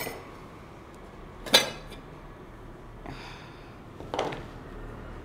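Kitchen utensils and a mixer grinder jar clinking as ingredients are put in for grinding: one sharp clink about a second and a half in, a soft rustle around three seconds, and a smaller knock about four seconds in.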